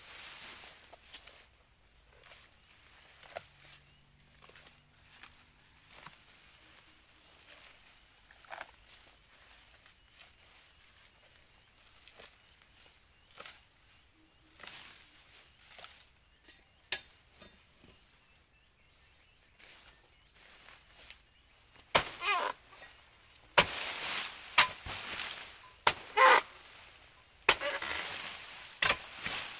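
Insects droning steadily in a high, even band, with scattered rustling and small knocks. In the last eight seconds, a run of loud sharp cracks and longer rustling crashes of vegetation.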